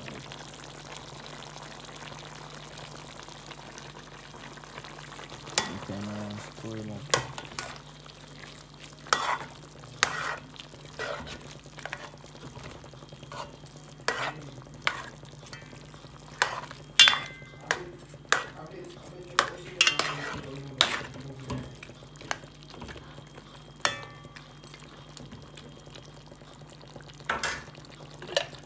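A metal spoon stirs curry chicken and vegetables in an aluminium pot over a steady sizzle. From about five seconds in, the spoon knocks and scrapes against the pot in irregular clinks, roughly one a second.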